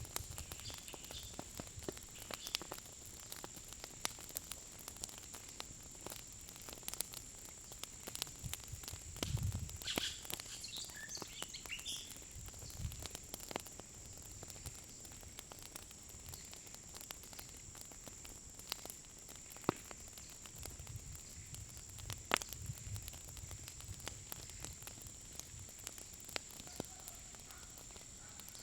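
Wood fire crackling, with sharp irregular pops over a steady hiss.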